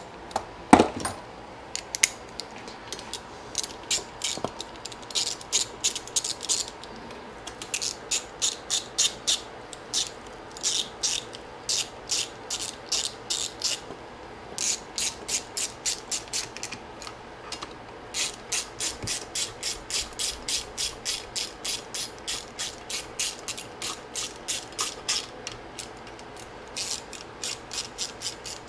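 Hand ratchet clicking in runs of about three clicks a second with short pauses, as bolts on the valve cover of a Yamaha G29 golf cart engine are run down snug. A single knock sounds about a second in.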